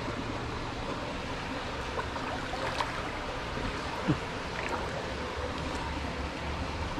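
Feet wading through shallow water over a steady rush of flowing water, with a few short splashes, the loudest about four seconds in.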